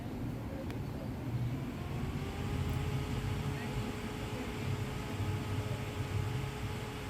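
A handheld electric fan switched on: its small motor spins up with a short rising whine about two seconds in, then runs at a steady pitched hum over a low background rumble.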